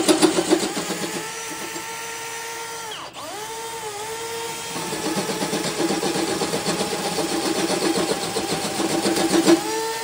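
Cordless hand drill turning a line boring bar: a steady motor whine with a rapid rattle from the cutter in the bore. About three seconds in the motor briefly slows almost to a stop and speeds up again, and it does the same just before the end.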